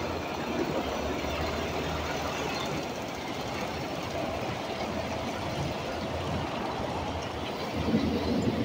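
Semi-truck's diesel engine running steadily while the truck is manoeuvred to back up to a loading ramp, with a brief louder stretch near the end.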